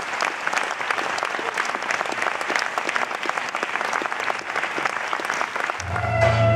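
Audience applauding steadily after a closing tribute. Music with guitar and bass comes in near the end.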